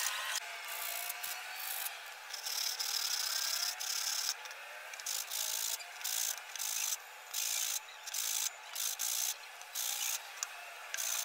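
A blade scraping the cut edge of a black plastic ring, then a white plastic tub rubbed back and forth on a sheet of sandpaper in quick strokes, about two a second.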